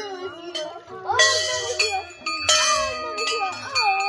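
Brass temple bells hanging in a row, struck by hand a few times, each strike leaving a clear ringing tone. A devotional song with singing plays throughout.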